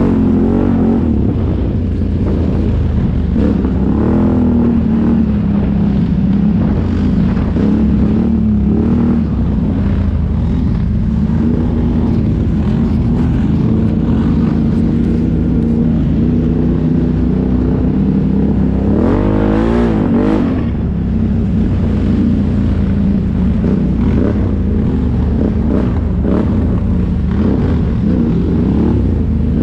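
Can-Am ATV engine running while riding, its pitch wandering with the throttle, with one sharp rev up and back down about two-thirds of the way through.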